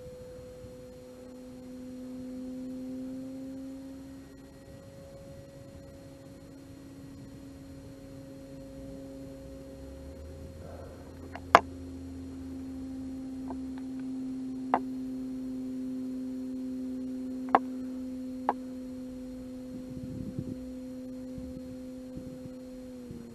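Electric motor and propeller of an RC Cessna 150 model plane droning steadily in flight, the pitch drifting slightly, with several sharp clicks in the middle stretch. The drone cuts off abruptly near the end.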